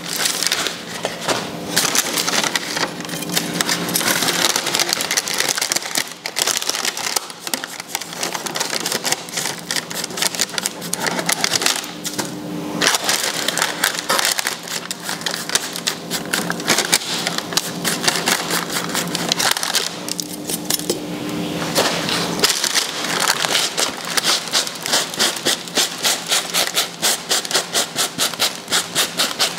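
Coarse salt crust being scraped and wiped off the skin of a roasted pork belly: dense scratching and rubbing strokes, settling into a steady back-and-forth rhythm near the end.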